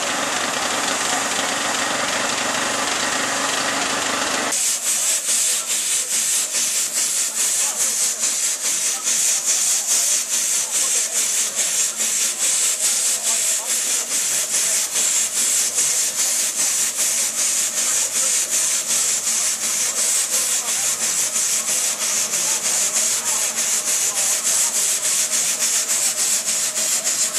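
Showman's steam traction engine running in place to drive its dynamo, its exhaust beating out a steady, quick rhythm of hissing chuffs. For the first few seconds a fuller mix of engine noise and crowd voices is heard instead, and it cuts off abruptly.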